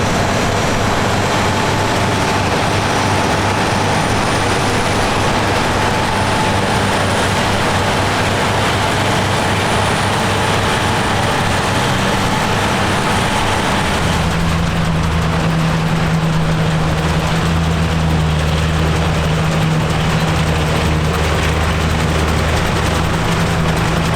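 Vintage tractor engines running steadily. About two-thirds of the way through the engine note changes abruptly to a deeper, stronger hum.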